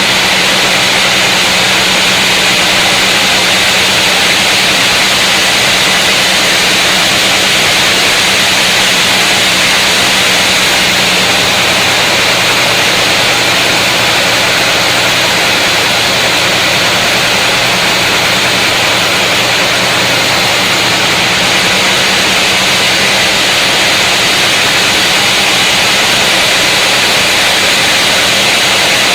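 Large power saw running steadily as it cuts through a big mahogany log: a loud, even rasping hiss over a steady low motor hum, the hum fading somewhat near the end.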